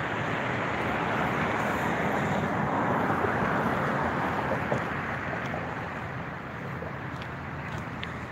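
Road traffic noise: a passing vehicle's tyre and engine noise swells over the first few seconds and then fades away.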